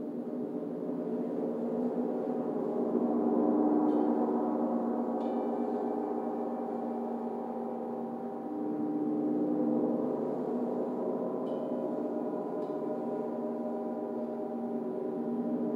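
A gong played with a mallet, building a sustained, shimmering wash of many overlapping tones with no separate strikes standing out. The wash swells twice, about a quarter of the way in and again about two-thirds of the way in.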